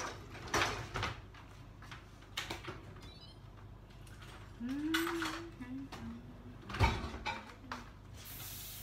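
Kitchen clatter: a few scattered knocks and clinks of pots and utensils, with a short murmured voice a little past the middle and a soft hiss near the end.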